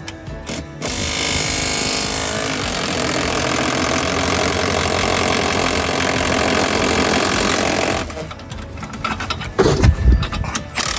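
Impact wrench running in one long burst of about seven seconds on a suspension bolt, spinning up at the start and hammering steadily. A few heavy metallic knocks near the end.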